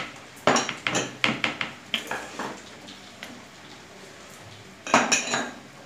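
A silicone spatula and a small glass bowl click and knock against a plastic mixing bowl as spices are scraped in: several light taps over the first couple of seconds, then a louder brief clatter about five seconds in.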